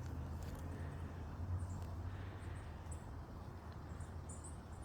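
A few faint, very short high-pitched chips from small songbirds in the trees, mostly in the second half, over a steady low rumble.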